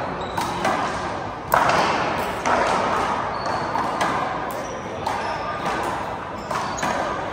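Handball rally: the small rubber ball smacked by hand and hitting the front wall, several sharp echoing smacks with the loudest about a second and a half in, with short high sneaker squeaks on the court floor.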